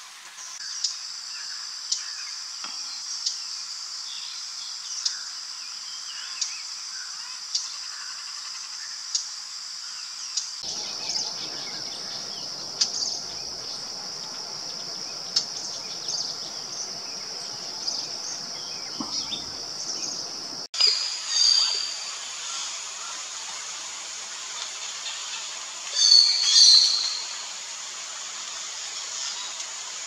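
Forest ambience: a steady high insect buzz with short bird chirps repeating every second or so. Louder bird calls come about two-thirds of the way through and again a few seconds later. The background changes abruptly twice where the footage is cut.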